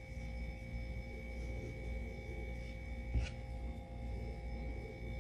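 Quiet room tone: a faint, steady electrical whine at several pitches over a low rumble, with one soft tap about three seconds in.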